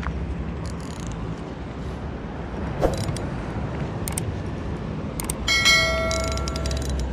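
Wind buffeting the microphone throughout, with a knock about three seconds in and a few light clicks. About five and a half seconds in a bright bell-like chime rings for a second or so, the notification-bell sound effect of a subscribe-button animation.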